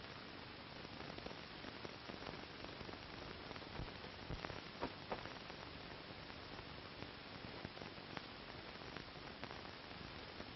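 Steady hiss of an old 1940 film soundtrack, with a few faint clicks about four to five seconds in.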